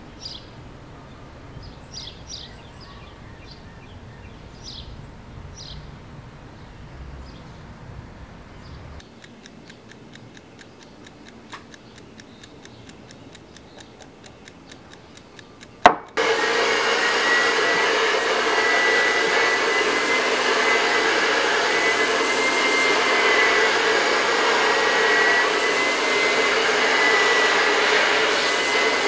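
A handheld hair dryer clicks on about halfway through and runs steadily with a high whine, blowing on a freshly stretched drum skin to dry it. Before it, faint bird chirps.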